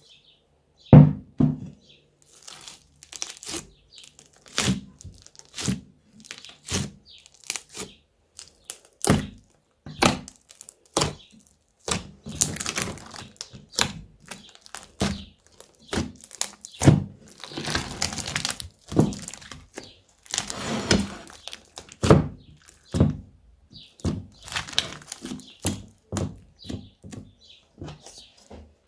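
Slime being squished, stretched and folded by hand: a run of sticky pops, clicks and crackles at irregular intervals, with a few longer crackling stretches.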